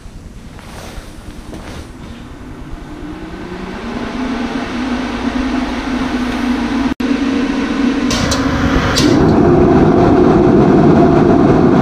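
Mr. Heater MH35FA 35,000 BTU propane forced-air torpedo heater starting up: its fan motor hums, rising in pitch and getting louder as it spins up. A few seconds later the burner is lit and the heater runs with a louder, steady rush of fan and propane flame, with two short hisses just before it settles.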